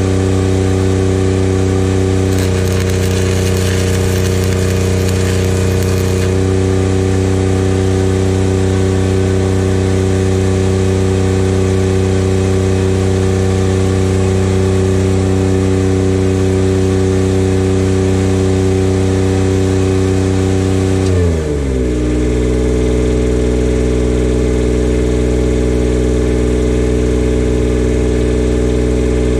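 A Miller Bobcat 250 diesel engine-driven welder runs steadily at weld speed. About two seconds in, a 6010 stick-welding arc adds a hissing crackle for about four seconds. About twenty seconds in, the engine drops in pitch and settles to idle.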